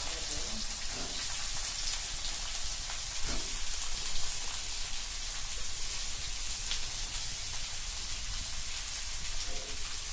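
Hot oil with cumin seeds sizzling in a cooking pan: a steady frying hiss, with a couple of faint knocks about three and four seconds in.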